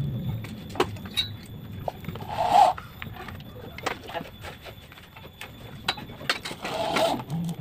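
Corded electric drill used as a screwdriver, driving screws into a steel concealed cabinet hinge in two short bursts, about two and a half seconds in and again near the end. Light clicks of screws and metal hinge parts being handled come between.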